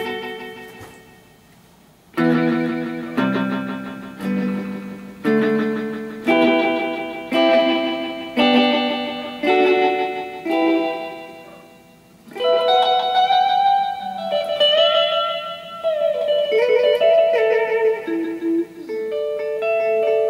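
Electric guitar played through an amplifier and the repaired Ibanez DE7 delay/echo pedal. A chord rings and fades; after a short pause, chords are struck about once a second, each ringing out and dying away. From about twelve seconds in, a quicker run of single notes follows.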